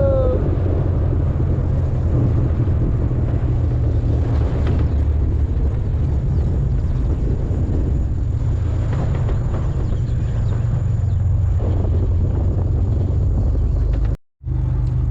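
A motor vehicle driving steadily, its engine and road noise a constant low rumble. The sound cuts out for a moment near the end.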